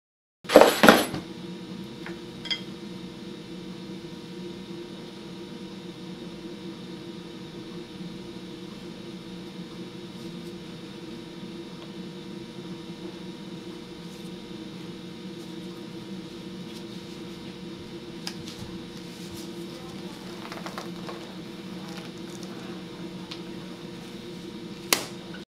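Steady mechanical hum with several held tones, with one loud sudden clatter about half a second in and a few faint handling clicks and scrapes later on.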